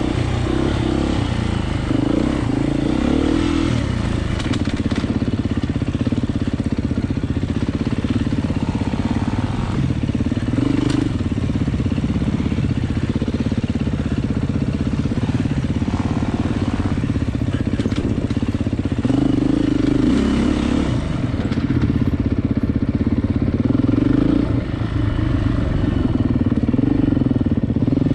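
Off-road motorcycle engine working hard on a trail, the revs rising and falling again and again as the throttle is opened and closed.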